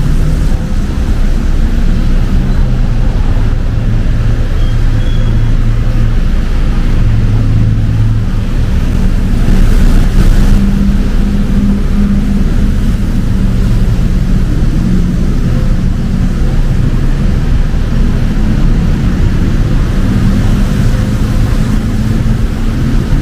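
City road traffic: vehicle engines running in a steady low rumble, with one vehicle passing louder about ten seconds in.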